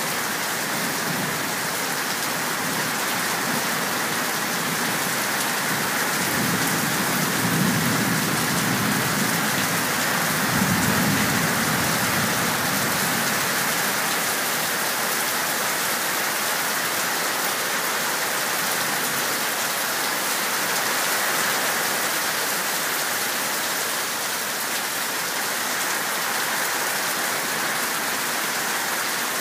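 Heavy rain pouring down steadily in a storm, with a low rolling rumble of thunder from about seven to twelve seconds in.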